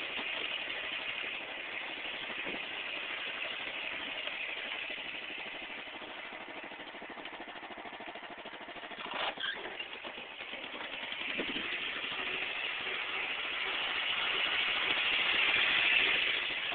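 Riding lawn mower engine running. It surges briefly about nine seconds in, then grows louder to its loudest near the end.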